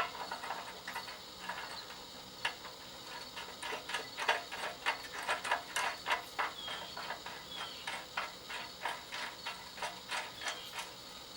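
Ratchet wrench clicking in short irregular strokes with metal clinks, running the nut down onto a bumper-mounted whip light mount bolt. A sharp click comes right at the start, and the clicking is busiest through the middle.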